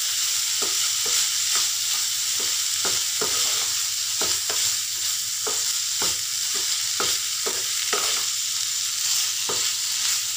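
Minced meat with onion, capsicum and green chilli sizzling as it fries in a pan, with a spatula stirring and scraping against the pan about twice a second.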